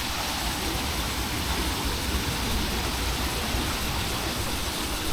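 Steady rushing of river water, an even hiss with a low rumble beneath it, which cuts off abruptly near the end.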